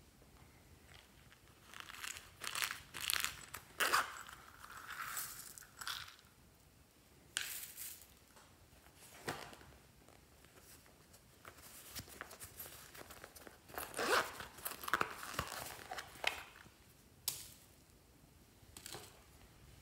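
Hands handling a small red bird-shaped purse and slime add-ins: irregular rustling and crinkling in short spells, loudest a few seconds in and again past the middle.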